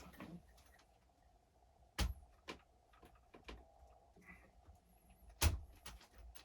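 Scattered clicks and knocks of RC truck parts being handled and wedged together as the chassis is worked back on over the drive shaft, with two louder knocks about two seconds and five and a half seconds in.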